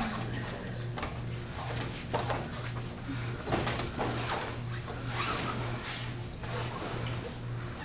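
Karate sparring: feet shuffling and stamping on foam floor mats and padded gloves landing, a scatter of irregular knocks and thuds over a low hum.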